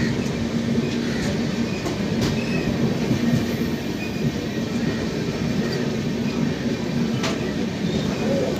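Train running on the rails: a steady rumble with a low hum and a few sharp clicks of wheels over rail joints, close alongside a passing goods train.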